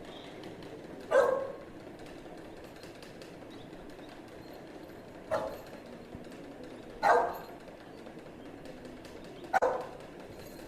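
A dog barking four times, single short barks spaced a few seconds apart.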